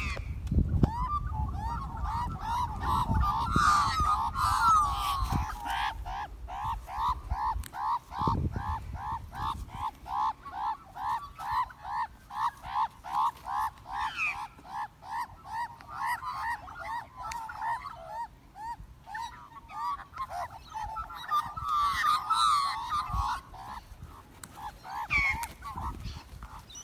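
Australian magpies fighting: harsh squawking, then a long run of short honking calls repeated about three times a second, breaking back into tangled squawks near the end.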